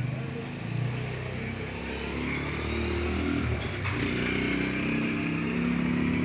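Motor vehicle engines running in traffic, their pitch rising and falling as they rev and pass, over a steady hiss.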